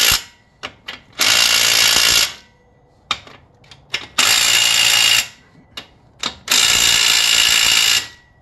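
Cordless power tool running on a socket in short bursts of about a second, three times, with a brief end of a burst right at the start, run-ups and stops between. It is tightening the bolts on a rebuilt AAM 11.5 rear differential once the backlash has been set.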